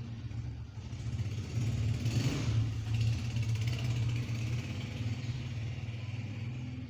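Honda 125 motorcycle's single-cylinder engine running, growing louder with a rush of noise about two seconds in, then slowly easing.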